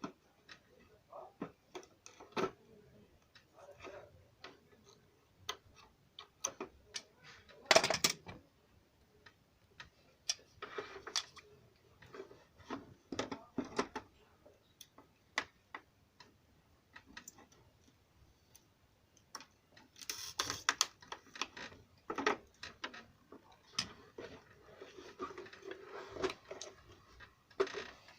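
Scattered clicks, taps and short scrapes of a plastic car headlight being handled and worked on by hand, with a louder knock-and-scrape about eight seconds in and another burst of scraping about twenty seconds in.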